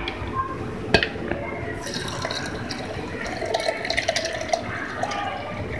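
Milk poured into a glass blender jar, a steady splashing fill with some ringing tones, after a single knock about a second in.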